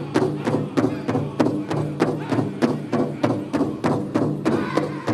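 Powwow drum group beating a fast, steady rhythm in unison on a big drum, with men's voices singing a chicken dance song over it.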